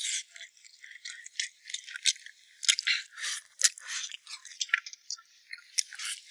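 Close-up eating sounds of someone gnawing a spicy braised pig's trotter: an irregular run of wet smacks and sharp crackling clicks from chewing sticky skin and tendon.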